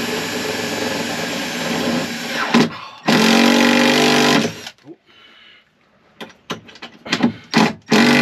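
Milwaukee 12-volt impact driver driving screws into a timber loft joist. It runs for about two and a half seconds, then again from about three seconds to nearly five, then gives a string of short bursts near the end as a screw is snugged down.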